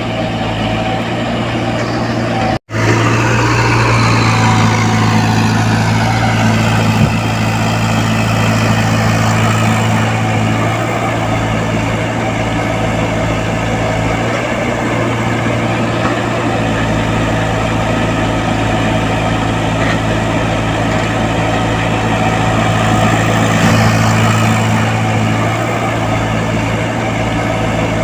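Komatsu PC75UU mini excavator's diesel engine running steadily under working load, with a higher hydraulic whine that glides down in pitch a few seconds in. The sound cuts out for an instant about two and a half seconds in.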